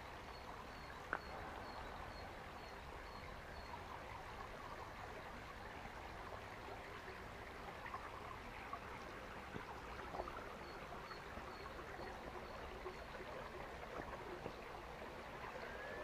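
Small woodland stream trickling steadily. Two runs of faint, evenly spaced high peeps can be heard, one near the start and one from about ten seconds in, and there is a single light click about a second in.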